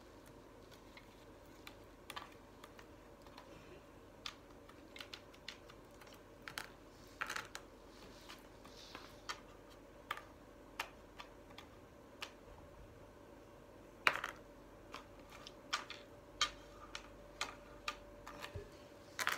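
Irregular light clicks and clacks of small shape blocks being lifted off a shape board and set down on a tabletop, with a louder clatter about two-thirds of the way through.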